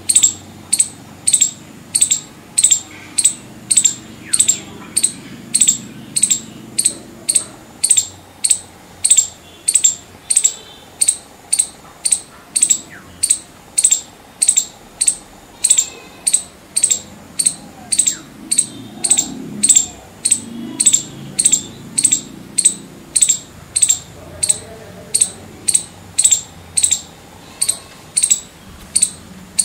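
Northern palm squirrel (five-striped palm squirrel) calling: a long run of short, sharp, high-pitched chip notes repeated at an even pace, a little under two a second.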